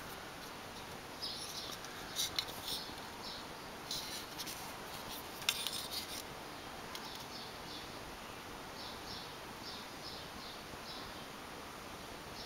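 Handling noise from fingers turning an Eaglemoss die-cast starship model: small clicks, taps and rubs of skin and fingernails on its metal and plastic hull. The sharpest click comes about five and a half seconds in, and fainter ticks follow.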